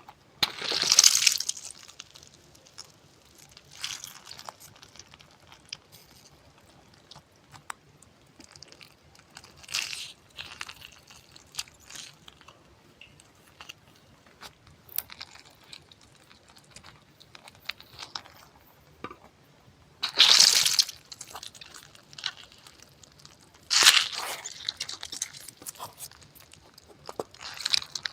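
Close-miked ASMR crunching in separate bursts a few seconds apart, the loudest about a second in and at around twenty and twenty-four seconds, with small clicks and crackles in between.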